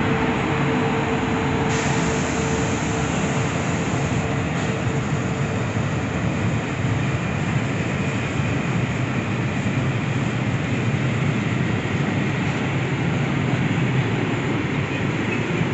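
Freight train of sliding-wall boxcars rolling past close by at a steady speed, a continuous noise of wheels on rails. A steady tone fades out about halfway through.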